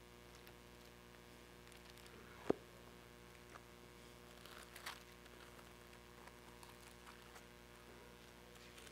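Near silence with a steady mains hum, broken by one sharp click about two and a half seconds in and a few faint rustles a couple of seconds later.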